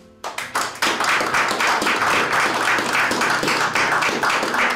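A dozen or so people applauding: the clapping starts suddenly just after the start and runs on steadily.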